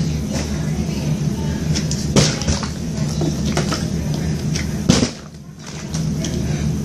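Plastic water bottle, partly filled with water, being flipped and landing with two sharp knocks, about two seconds in and again near five seconds in, over a steady low background sound.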